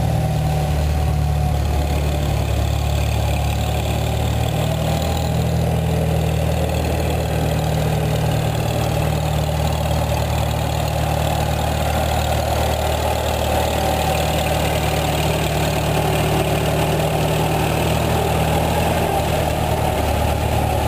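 Early-1950s Farmall M tractor's four-cylinder engine running steadily at a low, even speed while the tractor is driven along.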